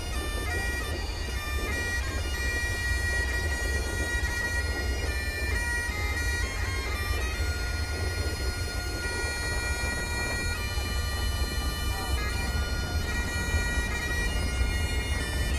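Background music of held, droning notes that shift every few seconds, over a steady low rumble.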